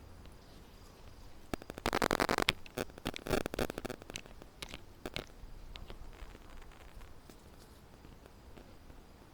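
Kittens scrambling, making quick rustling and scratching in two short bursts about two and three seconds in, then a few scattered scratches.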